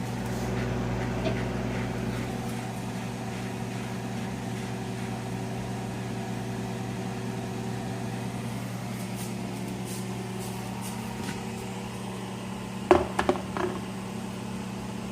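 Microwave oven running steadily as it heats the food, a low electrical hum. A few sharp knocks come about thirteen seconds in.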